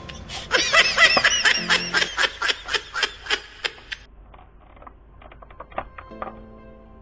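Laughter: a quick run of about a dozen 'ha-ha' pulses that fades out about four seconds in, followed by faint clicks.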